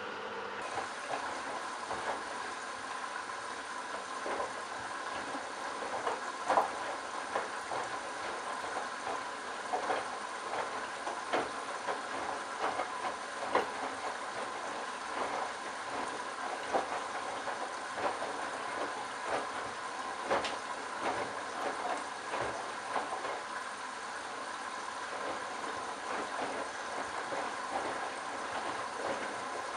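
Candy Bianca washing machine running: a steady motor hum with a faint whine, and frequent irregular knocks and clicks from the turning drum and its load of towels.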